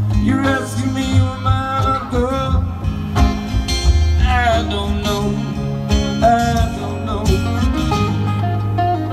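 Two acoustic guitars playing an instrumental break: strummed chords underneath a picked lead melody with bent, sliding notes.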